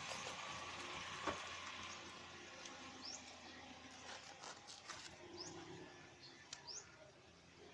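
Faint handling noises of an umbrella being repaired: a sharp click about a second in, then scattered light clicks of the metal ribs and frame, with a few short high rising chirps.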